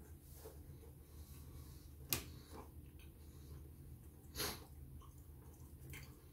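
A person chewing a mouthful of crunchy chocolate chip cookie with the mouth closed: faint mouth sounds, a sharp click about two seconds in and a short louder burst of noise about four and a half seconds in.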